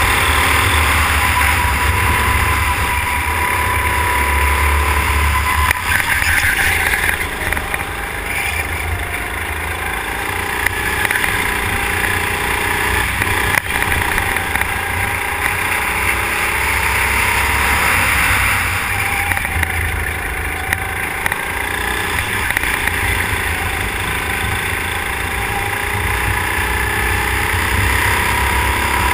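Go-kart engine running hard, heard from a camera mounted on the kart, its pitch dipping and rising again as the driver lifts and gets back on the throttle through the corners.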